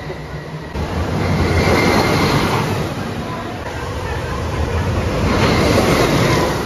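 Suspended roller coaster train rushing past through the station, a swelling rush of wheels on track that peaks about two seconds in and again near the end as it passes back.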